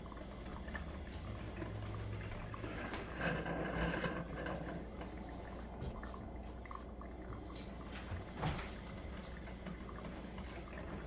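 Cuisinart drip coffee maker brewing: steady gurgling and hissing of water being heated and pushed through, swelling about three to four seconds in, with a couple of faint clicks later.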